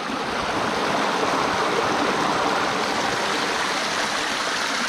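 Small mountain stream flowing over rocks, a steady rushing and babbling of water.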